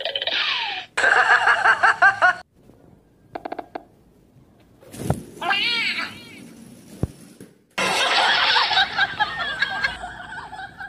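Domestic cat meowing and yowling in several loud bursts, with a sharp sudden sound about five seconds in.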